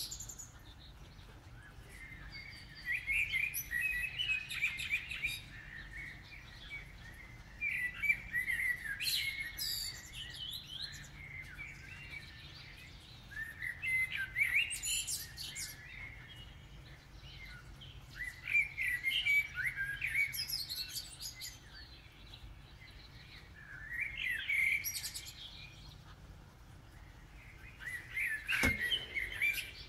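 Common blackbird singing its dawn song: six warbling phrases about five seconds apart, each breaking into higher twittering, over a faint steady low hum.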